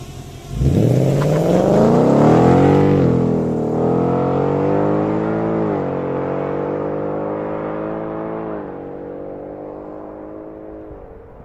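Ford Mustang GT's 5.0-litre V8 accelerating hard from a launch. The revs climb steeply and fall sharply with upshifts about three and six seconds in, with a smaller drop later. The engine grows quieter through the last few seconds.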